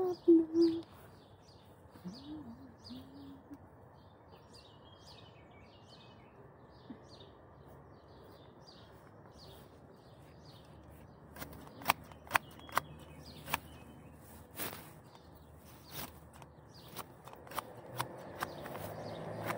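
Small birds chirping in the background through the first half. In the second half comes a run of sharp, separate snaps and clicks from hand work in the garden close to the microphone, about a dozen over the last eight seconds.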